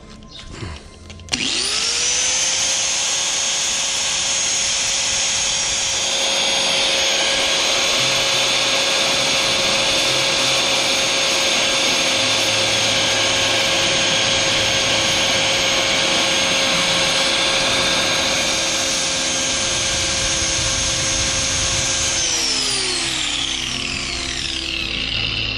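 Hand-held electric angle grinder switched on, spinning up to a steady high whine, with a coarser grinding hiss while a plastic tile-edge trim piece is held against the disc to profile its edge to a point. Near the end the motor is switched off and its whine falls as the disc spins down.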